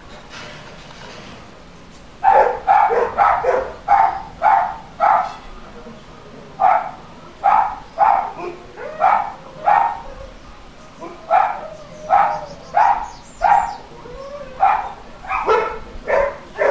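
A dog barking repeatedly, starting about two seconds in, in four runs of five to seven barks each, the barks about half a second apart.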